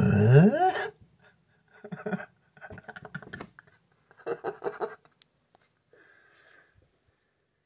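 A person's voice: a loud vocal sound gliding up in pitch for about a second, then three short clusters of breathy, mumbled vocal sounds.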